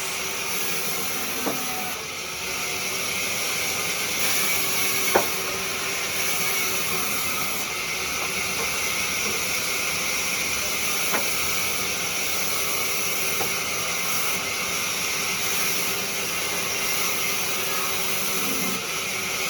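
Wood lathe running with a steady hiss of the spinning workpiece being worked, broken by a few sharp clicks, one about five seconds in and another about eleven seconds in.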